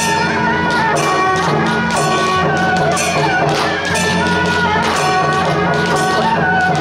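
Traditional Taiwanese temple procession music accompanying dancing giant deity puppets: a high wavering wind melody over steady drum and cymbal strokes.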